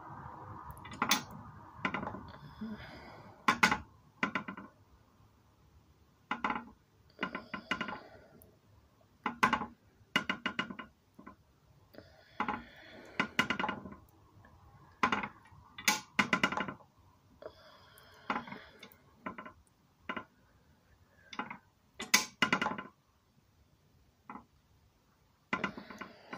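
Old metal kitchen balance scale (WWPZPT Przemyśl, 5 kg) clattering as a thumb presses its beam and pan down against a kettlebell on the other pan and lets go. Irregular clusters of metallic knocks and clinks, some with a short ring, come every second or two with quiet gaps between.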